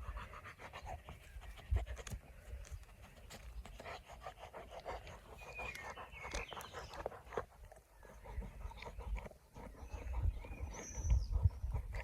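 Young boxer dog panting rapidly in the heat, a quick, steady run of short breaths.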